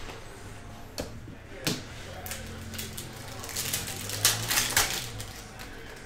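A few sharp clicks as cards in plastic holders are handled and set down, then a foil trading-card pack wrapper crinkling and tearing open, loudest in the second half.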